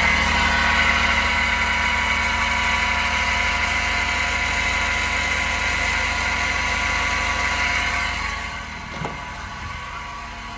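Daihatsu Hijet truck running with a loud, steady groaning whine over the engine sound; the whine fades about eight seconds in, and a single click follows about a second later. The groan is the noise that is traced to a broken air-conditioning compressor clutch.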